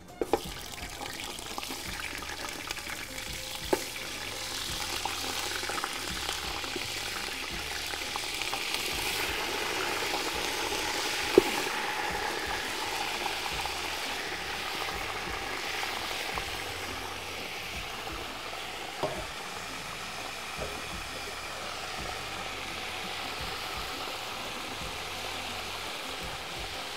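Pieces of raw meat sizzling and frying in hot oil in a large steel pot as they are added, browning in the oil left from frying onions. The sizzle swells about ten seconds in and then eases. A few sharp clicks stand out, the loudest near the middle.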